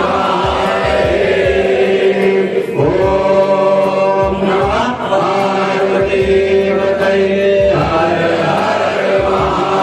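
Hindu aarti hymn sung by a crowd of devotees over music. Voices chant together above a steady held note, with low, repeated drum-like thuds.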